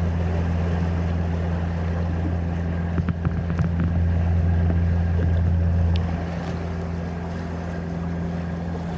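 A sailboat under power: its engine drones steadily and low, with the wash of water and wind over it. The drone drops a little in level about six seconds in, and a few light clicks come about three seconds in.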